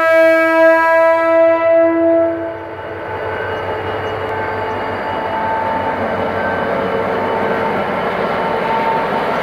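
Diesel locomotive horn sounding one long blast for about two and a half seconds, then the GM GT22CW-2's EMD 645 two-stroke diesel engine working steadily and growing slightly louder as it pulls the passenger train away from the station.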